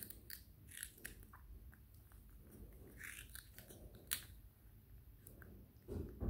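Baby macaque biting into and chewing a raw cucumber: a string of short, crisp crunches and wet chewing clicks, the sharpest about four seconds in. A dull low thump comes near the end.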